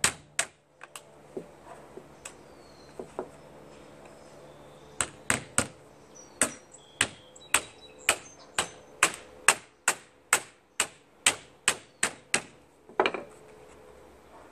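Hammer tapping lightly on a plastic pet-door frame, knocking it into a screen door's mesh. One tap at the start and a few faint ones, then a steady run of about three taps a second from about five seconds in until near the end.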